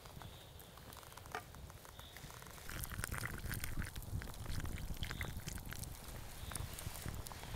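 Hot water poured from a cooking pot into a steel mug of leaves, starting a few seconds in and running steadily, over the small crackles of a campfire.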